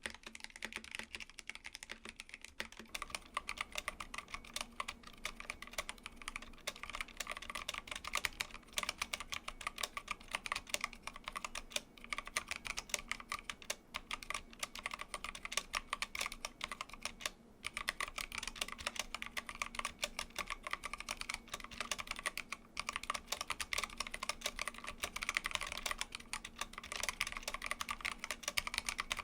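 Mechanical keyboard being typed on quickly and continuously, a dense stream of key-switch clicks and clacks with a brief pause about two-thirds of the way through.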